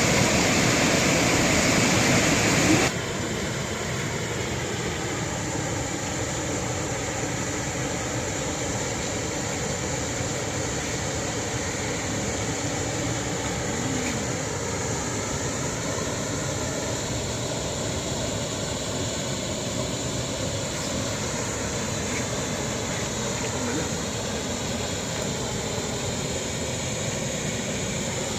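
Steady rushing of a waterfall. About three seconds in the level drops suddenly and stays lower and even.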